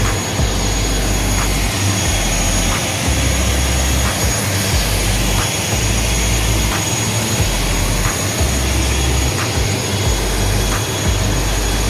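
Aircraft engine noise on an airport apron: a steady high whine over a broad roar, with wind rumbling on the microphone.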